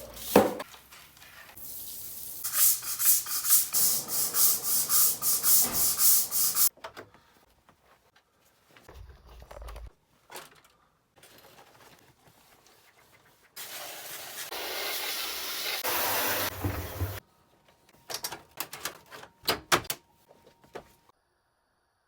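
Rapid, rhythmic scrubbing strokes, about three a second for several seconds, then a steady hiss lasting a few seconds, followed by scattered clicks and knocks.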